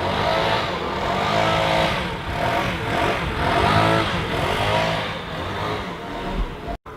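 Gas-powered leaf blower engine revving up and down over and over, about once a second, then cutting off suddenly near the end.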